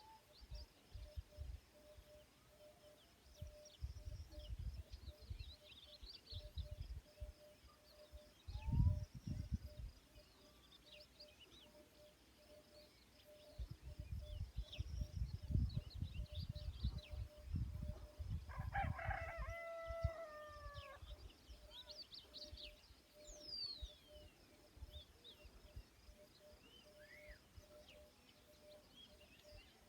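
A rooster crows once, about two-thirds of the way through, over many small birds chirping and a steady pulsing drone. Gusts of low rumble come and go and are the loudest thing here.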